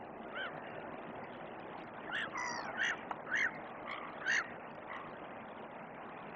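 A series of short animal calls, each rising and falling in pitch, over a steady background hiss. One comes near the start, then a quick run of about seven between two and five seconds in.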